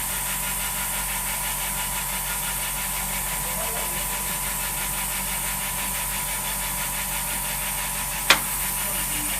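LCD flex cable bonding machine running with a steady hum and a thin constant whine, with one sharp click a little over eight seconds in.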